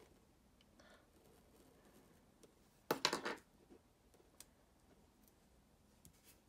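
Faint rubbing and ticking of hands smoothing stickers onto a paper planner page, with a short, loud clatter of several quick knocks about three seconds in as a craft knife is set down on the wooden desk.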